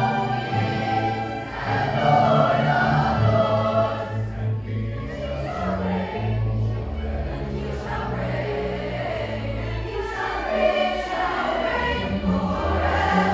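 A large school choir singing together, accompanied by a student string orchestra with sustained low bass notes under the voices.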